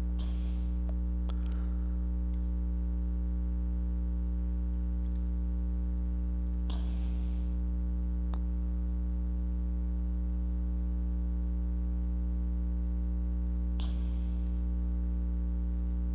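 Steady low mains hum from the recording setup, with a few faint clicks of computer keys being typed.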